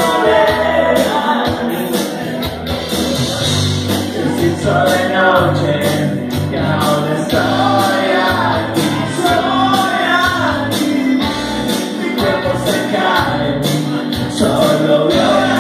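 Live rock band playing a song: a singer's sung phrases over electric guitar and a steady drumbeat with cymbals.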